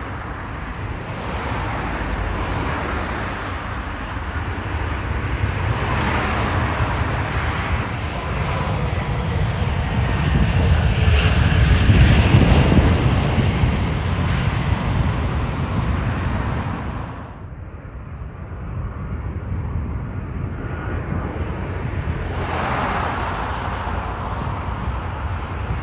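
Jet engines of landing Airbus A320-family airliners: a steady roar that builds to its loudest about halfway through as a jet rolls out along the runway. It drops suddenly about two-thirds of the way in, then builds again as another jet comes in.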